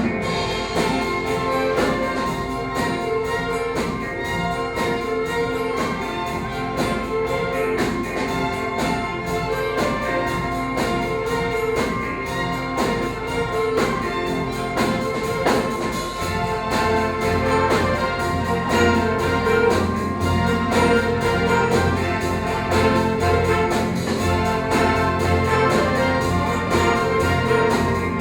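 Orchestral music with brass playing continuously. A strong low bass line joins a little past halfway.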